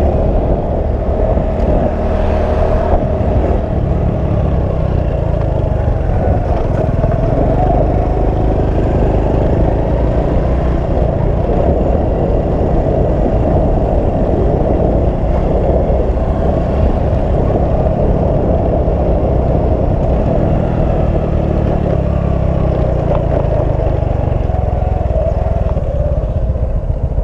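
A motor vehicle's engine running steadily for the whole stretch, its pitch drifting slowly up and down.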